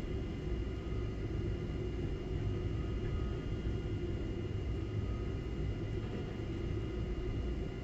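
Tower crane machinery running in the operator's cab: a steady low rumble with a faint, even high-pitched whine above it.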